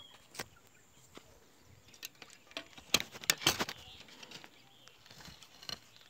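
Footsteps and crackling on a dry dirt path littered with leaves and twigs, with a burst of loud crunches about three seconds in. Faint bird calls are also there.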